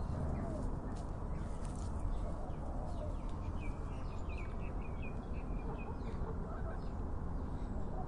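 Flamingos calling: a run of short, quick, chattering calls from about three to six seconds in, over a steady low background rumble.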